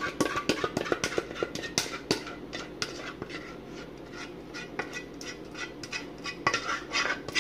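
A utensil clinking and scraping against a pan while thick cheese sauce is spread over noodles, a quick irregular run of clicks and scrapes that thins out midway and picks up again near the end.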